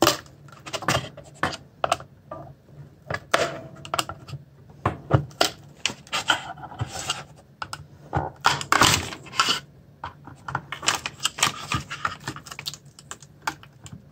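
A small screwdriver prying at the clips that hold an LED floodlight's clear lens in its housing: irregular sharp clicks and taps with short stretches of scraping as the clips are pushed out and the lens is worked loose.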